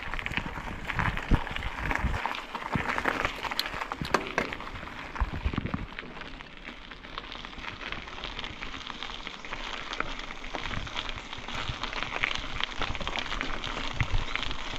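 Mountain bike rolling over a rough road: a steady crackling of the tyres over grit, with scattered clicks and a few low knocks from the bike.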